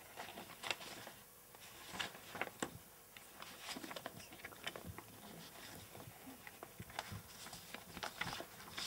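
Accordion file folder being leafed through by hand: faint, irregular rustling of paper and flicks of the folder's pockets.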